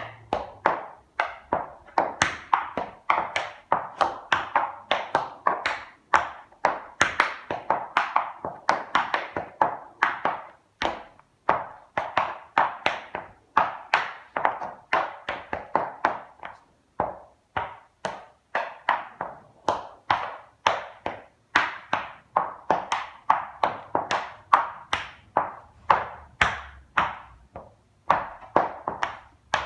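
Black leather tap shoes with metal taps striking a wooden tap board: tap dancing in quick, uneven runs of crisp taps, with a few brief pauses.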